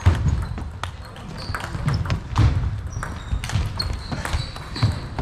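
Table tennis rally: the ball clicks sharply off the bats and the table at uneven intervals, about one hit every half second to a second. The hits ring on in a large hall.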